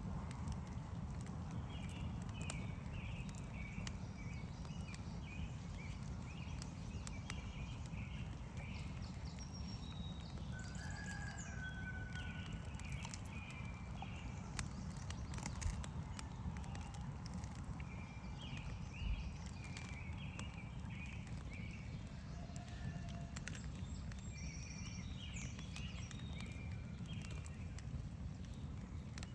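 Steady low rush of a stream, with small birds chirping in short repeated phrases and the scattered sharp pops and crackles of a wood campfire.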